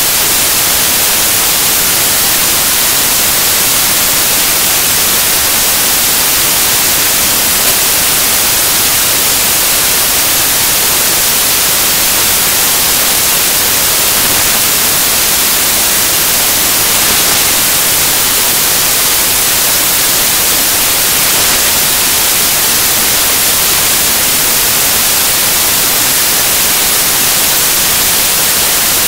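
Loud, steady static hiss, even and unbroken, heaviest in the high end, masking any sound of the scene.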